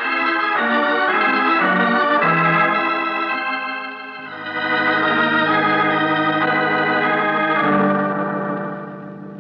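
Organ music bridge: sustained chords that swell, dip briefly about four seconds in, swell again on lower held chords, and fade near the end. This is a radio drama's scene-change cue.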